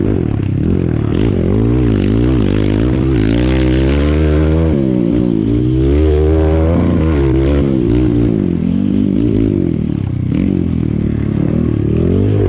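Dirt bike engine heard close up from on board, revving up and falling back over and over as the rider works the throttle, its pitch rising and dropping about once a second.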